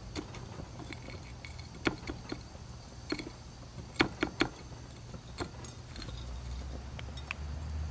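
A block of halloumi cheese being turned and pressed into dried spice flakes on a plate: scattered light taps and crackles of cheese and flakes against the plate, with a few sharper clicks about two and four seconds in. A low steady hum runs underneath and grows louder about six seconds in.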